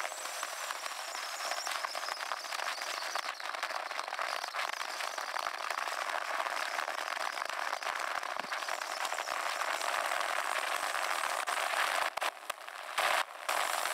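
Wind rushing and crackling on the camera microphone on a moving motorcycle, with brief dropouts near the end.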